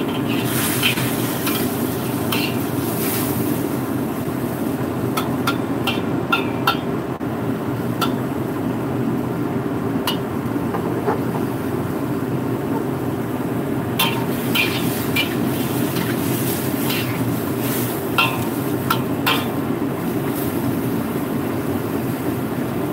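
Metal spatula clinking and scraping against a wok while stir-frying, in short spells of a few strokes, over a steady low hum.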